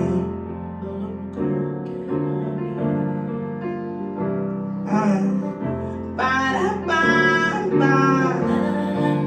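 Live pop performance: sustained keyboard chords over bass notes, changing every second or so, with a woman singing a sustained vocal line from about six seconds in.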